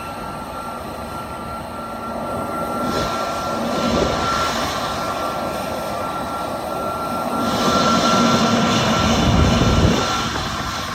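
Jet airliner's engines running with a steady high whine as it taxis in, with wind noise over it. The sound swells in the last third and eases shortly before the end.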